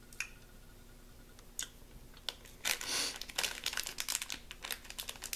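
A gummy-candy wrapper crinkling as it is handled, with a few scattered crackles at first and then a dense run of crinkling from about halfway through.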